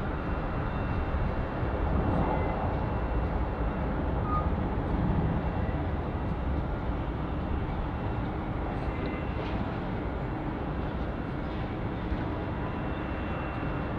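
Jet airliner engines running: a steady low rumble with a faint steady high whine above it.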